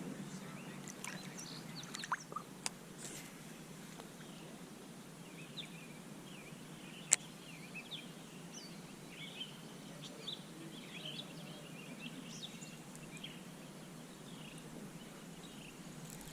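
Faint outdoor ambience of small birds chirping on and off, busiest in the second half, with a few soft clicks early on and one sharp click about seven seconds in.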